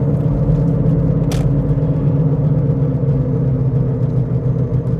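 Steady low drone inside a moving Toyota Prius, several steady tones over the road noise, from wheel bearings that the owner suspects are both worn. A brief faint click about a second in.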